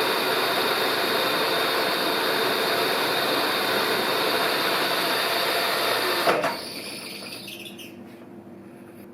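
Milling machine running steadily, then switched off with a click about six seconds in, its motor winding down to a faint hum.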